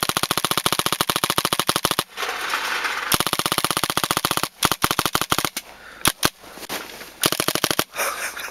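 Paintball marker firing in rapid strings, about a dozen shots a second, in several bursts broken by short pauses.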